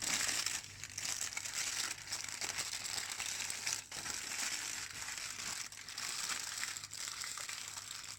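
Aluminium foil crinkling and rustling as it is folded and wrapped around a salmon fillet, an uneven crackle with brief pauses.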